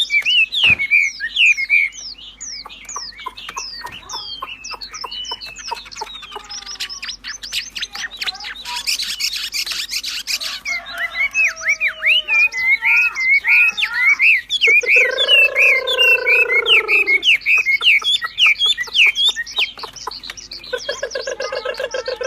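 A wambi songbird singing a fast, continuous stream of sharp whistled chirps and slurred notes, broken by a rapid rattling run of ticks about seven seconds in and a longer, harsher, lower call around fifteen seconds in.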